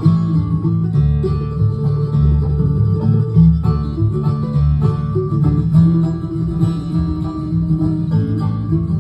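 Live bluegrass band playing an instrumental passage: banjo rolls and acoustic guitar over an upright bass, with no singing.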